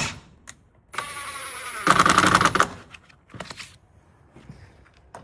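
A cordless power driver drives a screw through the door frame, drawing the jamb over to bring it into line. It runs in a burst of about a second and a half, spinning up with a whine and then rattling rapidly as the screw tightens. A short second blip of the trigger comes about a second later.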